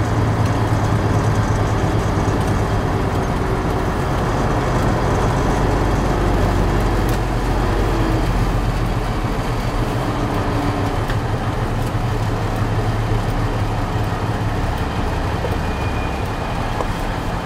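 Diesel engine of a Ford LTL9000 semi tractor running at low speed, heard from inside the cab as the truck creeps forward in a line of trucks. The engine note drops near the end as the truck slows.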